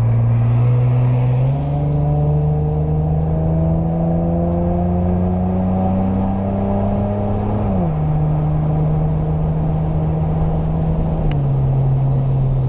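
A Nissan Maxima's V6 engine pulls under acceleration, heard from inside the car over road noise. The engine note steps up about a second and a half in and climbs steadily. It then drops sharply twice, a little before the eight-second mark and again near the end, as the car shifts up.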